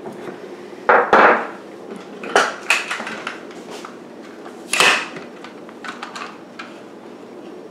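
Knocks, scrapes and clicks of a hand-held jerky gun being loaded and assembled: the plunger pushed into the aluminium tube and the plastic trigger handle with its plunger rod fitted on. The loudest clatters come about a second in, near two and a half seconds and near five seconds.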